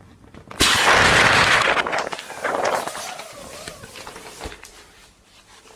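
Air rushing out of a Realtopdo ultralight camping mattress through its opened deflation valve. A sudden loud hiss starts about half a second in and fades away over the next few seconds.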